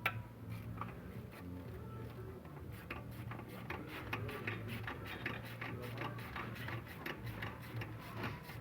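Light, irregular clicks and ticks, denser from about three seconds in, over a steady low hum, with faint background music.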